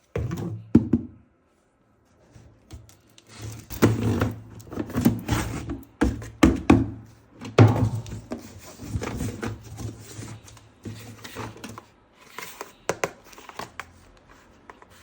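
Irregular thunks, clicks and rustles of a toy box and its plastic parts being handled and opened, over a faint low hum.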